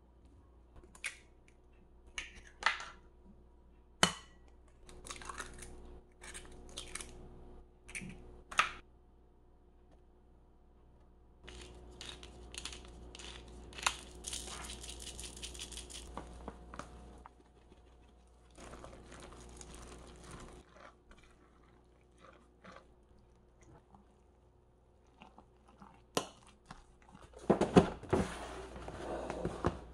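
Kitchen prep sounds: several sharp taps over the first nine seconds as eggs are cracked into a glass bowl, then a rasping stretch as salt and pepper go in. Near the end comes the loudest part, a cardboard meal-kit box being handled and opened with scraping and rustling.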